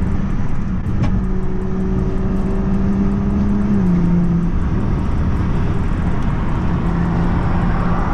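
BMW 340i's B58 turbocharged inline-six running through a valved aftermarket axle-back exhaust with the resonators deleted and the valve open, as the car drives at steady speed. It gives a loud, steady drone that drops slightly in pitch about four seconds in.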